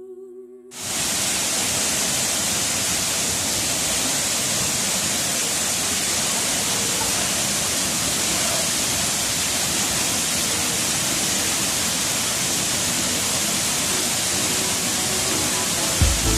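Waterfall's steady, rushing noise, cutting in suddenly about a second in over soft humming music. Low music beats come in right at the end.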